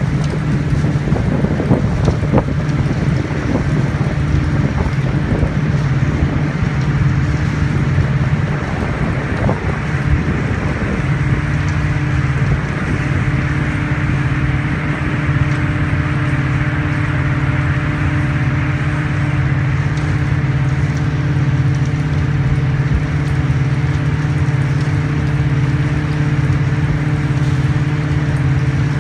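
Steady low mechanical hum made of several held tones, with irregular wind or handling noise on the microphone during roughly the first ten seconds.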